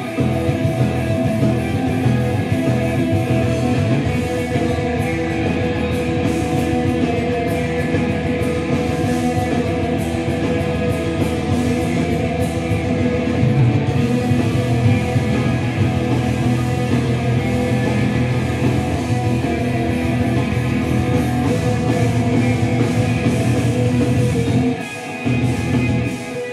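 A heavy metal band playing live at full volume, with electric guitars, bass and drums. The music drops out briefly near the end.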